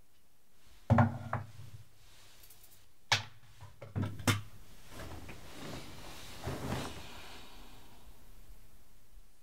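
A small wooden box being handled: two wooden knocks about a second in, then three more as it is set down on a wooden bedside table, followed by a soft rustle of bedding and clothes.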